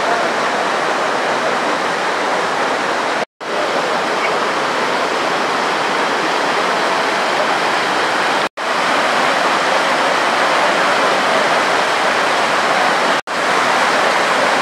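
Floodwater in a steep gully rushing over the washed-out edge of a road, a loud, steady rush of white water. It drops out briefly three times.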